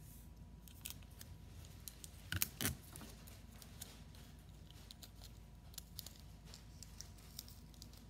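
Scotch tape being handled and wrapped around the ends of pipe cleaners by hand: faint scattered crinkles and clicks, with a louder cluster of clicks a little past two seconds in.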